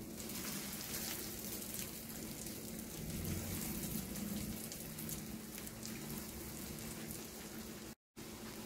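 Hot oil sizzling and crackling steadily around breadcrumb-coated potato and vegetable patties shallow-frying in a non-stick frying pan. The sound cuts out for an instant near the end.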